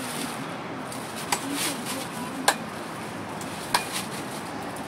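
A cleaver chopping into a fresh green coconut: three sharp chops about a second and a quarter apart.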